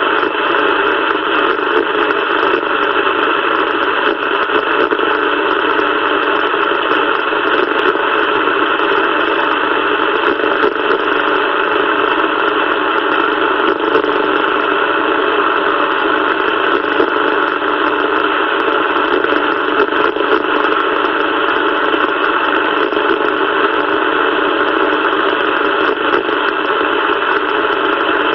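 CB radio receiver hissing with steady static through its speaker: an even, thin hiss with no bass and no voices, constant throughout.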